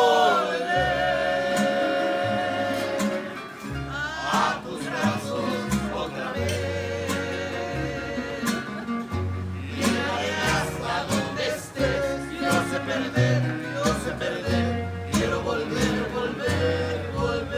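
Background music: a song with a sung melody over plucked guitar and a bass line that steps from note to note.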